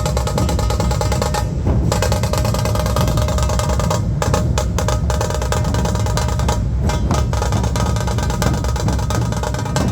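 Dhol drums being played in a fast, dense, unbroken rhythm.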